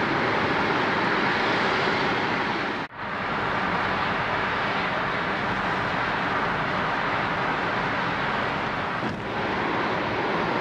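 Steady road and wind noise heard from inside a moving car's cabin, with a brief cut-out about three seconds in.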